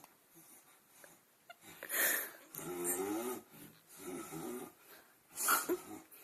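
Someone snoring: wheezy breaths at uneven intervals, with a pitched, wavering groan around the middle and a loud sharp breath near the end.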